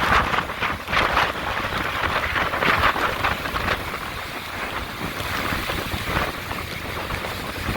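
Hurricane wind blowing hard and buffeting the microphone, rising and falling in gusts with a low rumble underneath.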